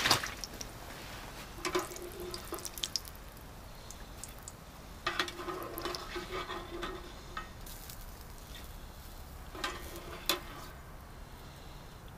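Fries sizzling in a pot of hot oil on a propane burner while a metal skimmer scoops them out, knocking and scraping against the pot a few times.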